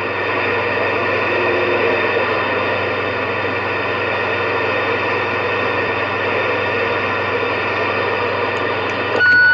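Steady hiss of static from a CB radio's speaker in the gap between transmissions. Near the end the hiss cuts off and a short beep sounds.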